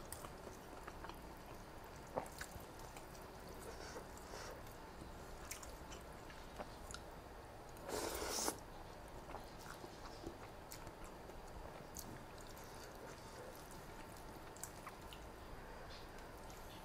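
Close-up eating sounds: chewing and small wet mouth clicks on rice noodles in coconut curry, with one louder slurp of noodles about eight seconds in.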